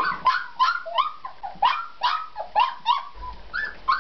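Four-week-old Siberian Husky puppies crying in a rapid string of short, high-pitched cries, several a second, while feeding together from one bowl.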